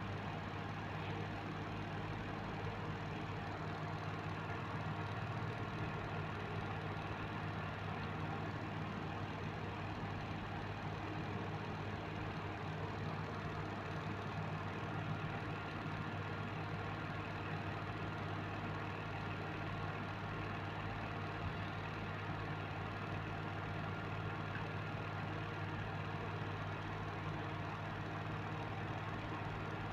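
Steady low machine hum with a faint hiss over it.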